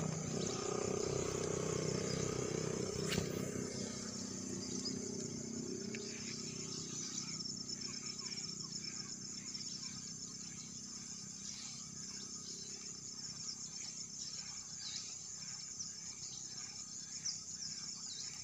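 Insects chirring in a steady, high, fast-pulsing chorus. A low rumble under it fades away over the first six seconds, and there is a single click about three seconds in.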